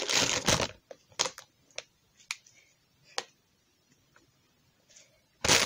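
Clear plastic packaging crinkling as a squishy toy is handled, dying away within the first second. A handful of faint, separate clicks and taps follow, and the crinkling starts again near the end.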